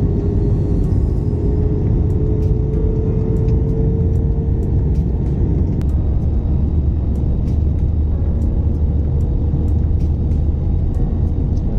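Steady low rumble of a moving vehicle heard from inside, with a tone that slowly rises in pitch and fades out about halfway through.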